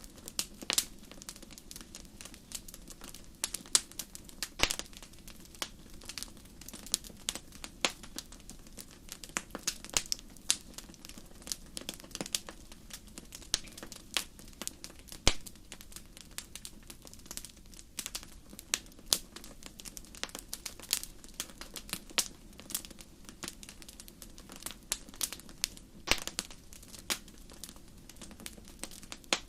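Wood campfire crackling: irregular sharp pops and snaps, a few of them much louder, over a low steady rush of burning wood.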